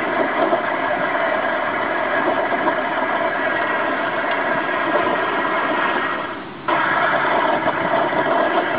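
Recorded car engine and road noise from a highway driving video, played through a car stereo's speakers. It dips briefly and returns suddenly about six and a half seconds in.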